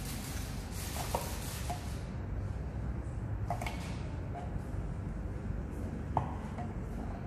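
About six light clicks and taps of hard objects being handled, each with a brief ring, over a steady low hum.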